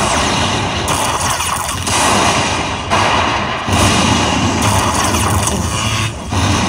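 Lightning Link slot machine's bonus-round sound effects: a run of loud, rushing noises, each about a second long, with short gaps between them.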